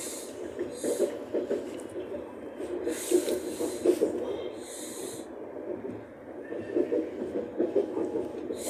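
Electric commuter train running along the track, heard from inside the carriage: a steady rumble and rattle, with short hissing sounds now and then.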